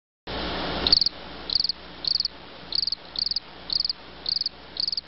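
Cricket chirping in a steady rhythm, one short high trill roughly every half second, over a faint hiss. The sound begins with a brief, louder rush of noise about a third of a second in.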